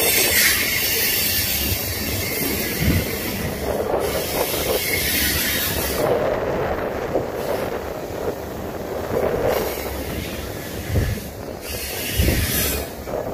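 Long freight train's cars rolling past on the rails: a steady rumble of wheels on track, with a hiss that comes and goes every few seconds.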